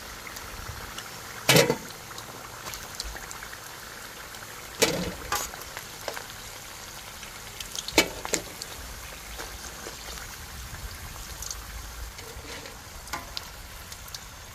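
Chicken feet deep-frying in hot oil in a wok: a steady sizzle with sharp clicks and pops now and then, the loudest about a second and a half in and again about eight seconds in.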